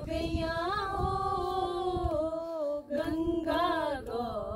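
Women singing a devotional bhajan to Shiva unaccompanied, in long held notes with a brief break about three seconds in.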